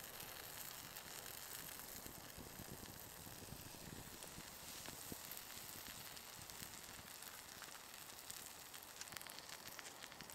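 Slices of giant puffball mushroom sizzling softly in a cast iron pan over a campfire, with faint crackles from the fire.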